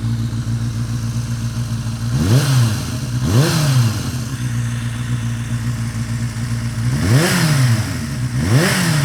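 1991 Suzuki Bandit 400 V's inline-four engine through a Yoshimura Drag Cyclone exhaust, idling and blipped on the throttle four times. Two quick revs come about two seconds in and two more near the end, each climbing and dropping back to idle within about half a second.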